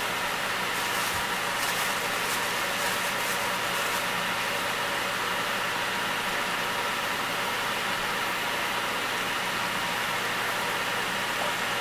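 Chicken and diced vegetables sizzling steadily in a stockpot, a constant hiss with a few faint crackles in the first few seconds, over a steady low hum.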